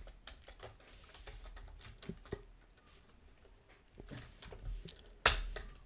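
Typing on a computer keyboard: irregular key clicks, with one louder click near the end.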